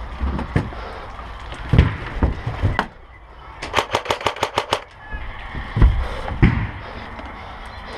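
Airsoft gun firing a rapid burst of about ten shots in just over a second, near the middle. Several dull low thumps come before and after the burst.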